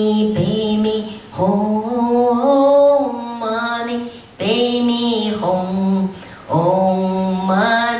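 A woman singing a slow song solo and unaccompanied into a microphone, in long held notes with a brief breath between phrases about three times.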